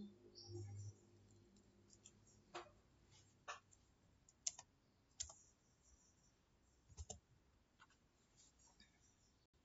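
Several separate, sharp clicks of a computer mouse and keyboard keys, spread apart in near quiet.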